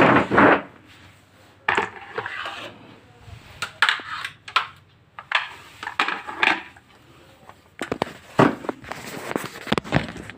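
Irregular plastic knocks, clatter and rustling as an electric kettle's power base and cord are picked up and handled.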